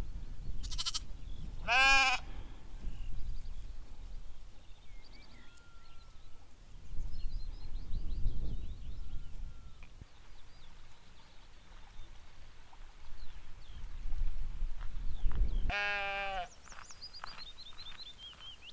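Sheep bleating twice: a short bleat about two seconds in and a longer, quavering one near the end, over a low rumble of wind.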